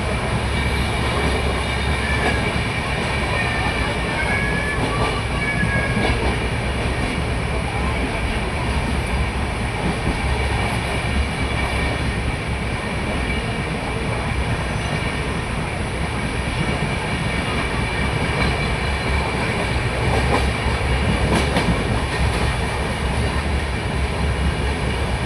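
Train running along the track: a steady, continuous rumble of wheels on rails with a clickety-clack quality.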